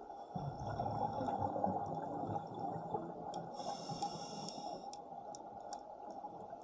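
Scuba diver breathing through a regulator underwater. A rush of exhaled bubbles rumbles for a couple of seconds, then comes a brief hiss of inhalation, with scattered sharp clicks through the second half.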